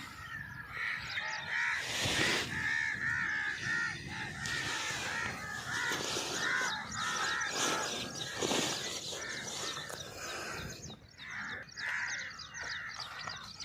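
Crows cawing over and over in a steady run of short, harsh calls, with two brief rushes of noise, about two seconds in and again past the middle.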